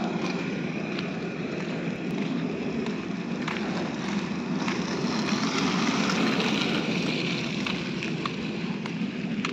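Steady road and wind noise from riding along a paved road, with no distinct engine note.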